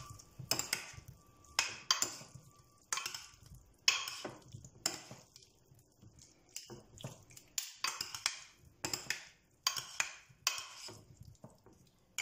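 Two metal spoons scraping and clinking against a glass baking dish as diced boiled potatoes are tossed with seasoning, oil and lemon; a sharp scrape about once or twice a second.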